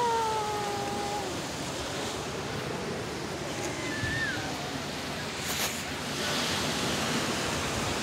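Small surf washing onto a sandy, rocky beach, a steady rush of waves. A drawn-out falling vocal sound trails off about a second in, and there is a brief click about five and a half seconds in.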